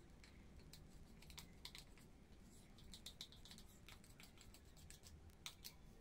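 Faint, irregular small clicks and taps of a plastic paint bottle being handled and squeezed while acrylic paint is dripped onto a tile, the sharpest ones near the end.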